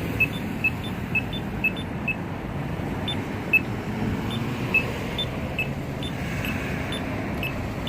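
Polara Bulldog II accessible pedestrian signal push button beeping short high beeps at a steady pace, about two a second, over the low hum of road traffic.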